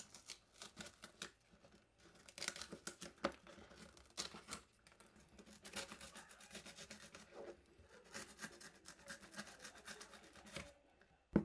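Faint, irregular scratching and rustling of hand work on small parts and materials, in many short strokes with brief pauses.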